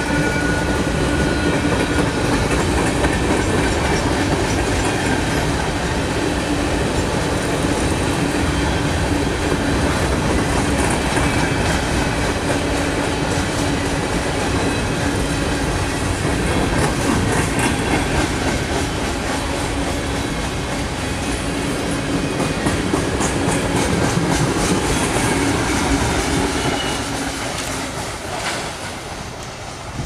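Freight cars of a long mixed freight train rolling past close by: a steady rumble of steel wheels on rail with clickety-clack over the rail joints. A faint steady whining tone runs under the rumble in the first half.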